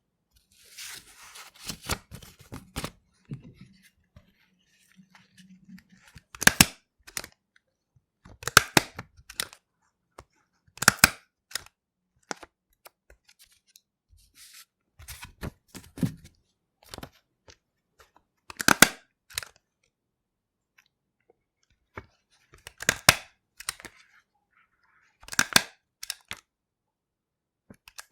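Stapler driving staples through sheets of paper: a sharp double click with each press, repeated every two to three seconds, with paper rustling at the start.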